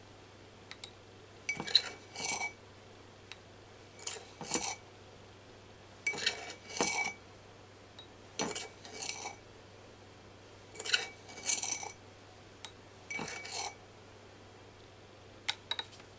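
Wooden spoon scooping sugar from a glass jar and tipping it into drinking glasses: short clusters of clinks and scrapes of wood on glass, about seven of them, one every two seconds or so.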